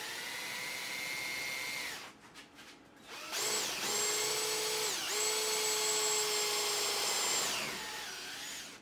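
Power drill driving a self-drilling drywall anchor into a wooden stud. The motor runs with a steady whine for about two seconds and stops. It starts again about three seconds in, dips briefly midway, and winds down near the end.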